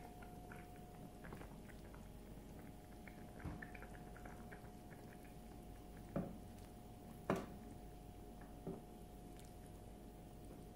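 Wooden spoon stirring soup in a non-stick pan, knocking against the pan three times in the second half, with a fainter knock earlier, over a faint steady hum.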